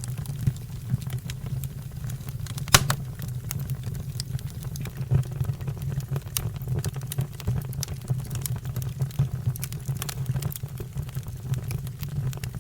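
Fire burning with a steady low roar and scattered crackles and pops, one sharp pop a little under three seconds in.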